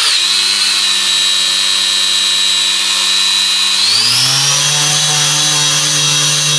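Electric motor and propeller of a Sport Cub 500 RC plane running on the ground with a steady high whine. About four seconds in the throttle is pushed to full and the whine rises to a higher steady pitch.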